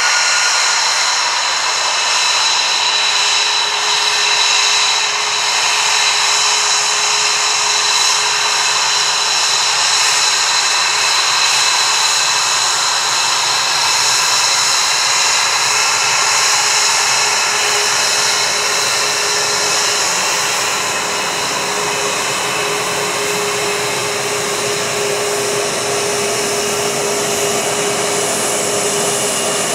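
Lockheed F-22 Raptor's twin Pratt & Whitney F119 turbofans at taxi power: a loud, steady jet whine and rush of air. A high whistle holds throughout, and a lower steady tone sets in a few seconds in.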